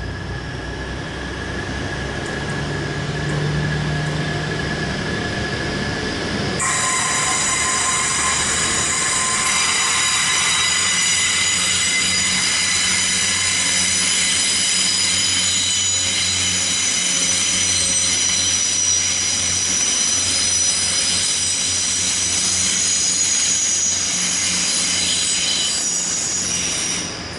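Class 180 diesel multiple unit pulling out of a station with its engines running, and from about seven seconds in a loud, high-pitched squeal of several steady tones that holds until near the end. It is typical of wheel flanges squealing as the train rolls round a curved platform.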